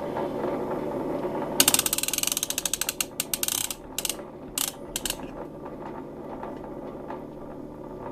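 A steady machine hum, then about 1.5 s in a rapid run of mechanical ratcheting clicks lasting about two seconds, followed by a few short bursts of clicks.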